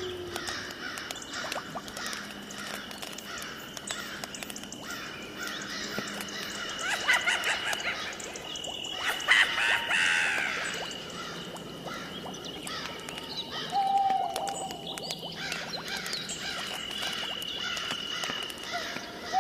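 Spooky nature sound-effect ambience: many bird chirps and calls over a steady high-pitched tone, with a louder flurry of calls about ten seconds in and a short falling call near the end.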